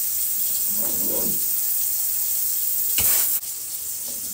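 Kitchen faucet running into the sink, a steady hiss of water. About three seconds in there is a brief louder burst, after which the flow runs quieter.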